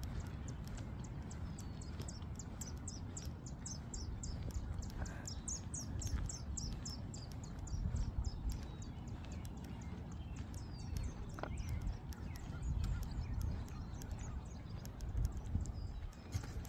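Outdoor ambience: birds chirping over a low steady rumble, with a rapid run of short high ticks, about five a second, that thins out about halfway through.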